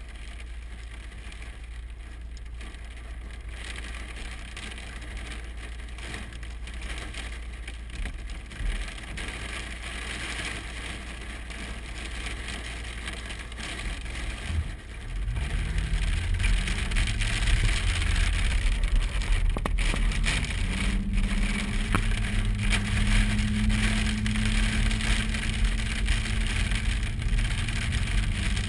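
Vehicle engine and road noise heard from inside the cab, with a steady hiss over it. About halfway through, the engine gets louder and its note rises in two steps as the vehicle pulls away and accelerates through the gears.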